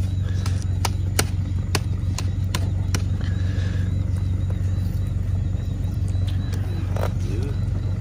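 A steady low engine hum, as of an idling motor, runs under sharp, scattered light clicks and rattles from a wire-mesh snake trap being handled, most of them in the first three seconds.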